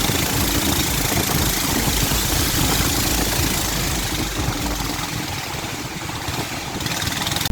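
A river boat's engine running steadily, a low rumble under a loud rushing hiss of water and wind.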